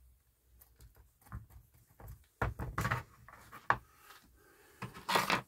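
Irregular light clicks, knocks and rustles of small plastic plant pots and a plastic tray being handled while potting on seedlings, more frequent from about two seconds in.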